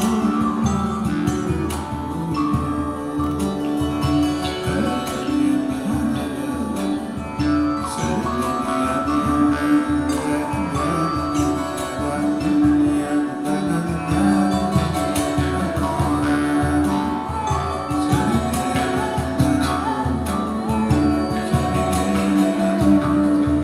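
Live world-folk band music: plucked strings, among them a kora, over long held tones.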